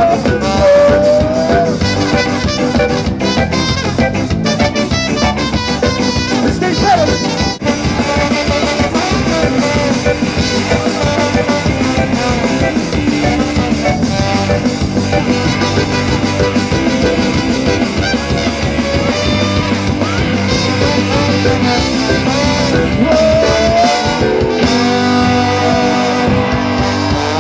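Ska band playing live: horns, electric guitars, bass and drum kit in a steady driving groove.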